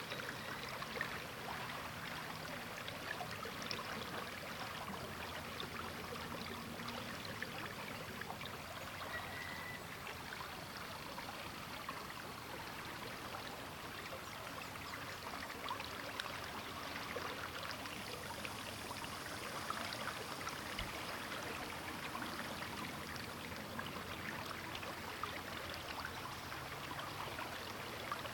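River water flowing over rocks and shallows, a steady babbling and trickling rush.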